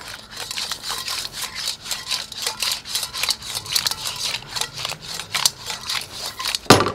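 Mussel and clam shells clacking against each other and the stainless steel sauté pan as the linguine are tossed, a rapid irregular clatter like castanets, with one louder knock near the end.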